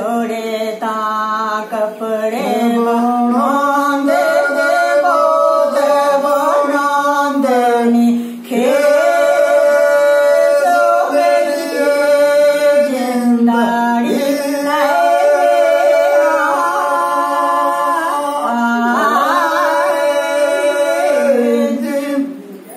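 A woman singing Dogri bhakh unaccompanied, in long held, wavering notes with ornamented turns, pausing for breath about 8 seconds in.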